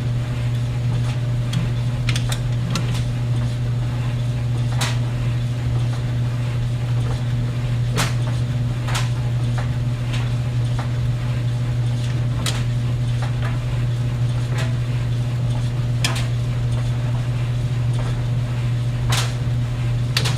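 Clothes dryer running: a steady low hum from the motor and drum, with sharp clinks and knocks at irregular intervals of one to four seconds as the tumbling load hits the drum.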